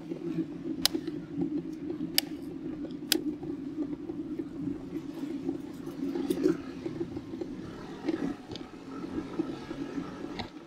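Bicycle tyres humming as they roll on the road, picked up by a microphone mounted on the handlebar, with a few sharp clicks in the first few seconds.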